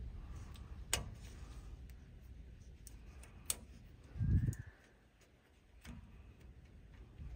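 Hand work on a truck's wheel speed sensor wiring: sharp clicks of plastic harness clips and parts being handled, about a second and three and a half seconds in, and a dull low thump just after four seconds. A low wind rumble fades out during the first couple of seconds.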